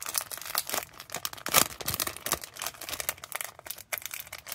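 Thin clear plastic packet crinkling and crackling as fingers pick at it to open it, in quick irregular crackles with one louder crinkle about one and a half seconds in.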